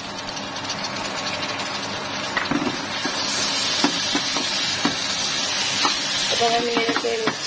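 Wooden spatula stirring potatoes and vegetable stems in a steel pot, with scattered scrapes and knocks against the pot. Oil sizzles under the food throughout, the hiss growing louder about three seconds in as the mixture fries.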